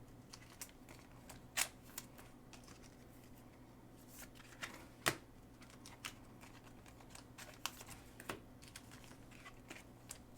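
Faint, scattered clicks and taps of football trading cards being handled and flipped through, with a couple of sharper snaps, the loudest about five seconds in.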